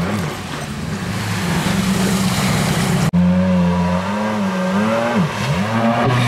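Stand-up jet ski engine revving up and down, with water spray hissing over it. The engine drops in pitch and climbs again a little after five seconds, and the sound cuts off abruptly about three seconds in where one clip is spliced to the next.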